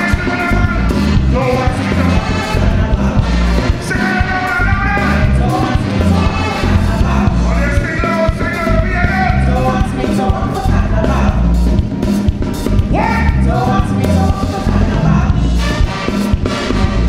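Live soca from a big band: saxophones and trumpets play over a steady bass and drums, with a lead vocalist singing.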